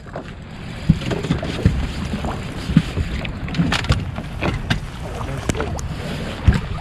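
Wind and water noise aboard an open fishing boat, with a steady low rumble and scattered short knocks and clicks from anglers casting and moving about the deck.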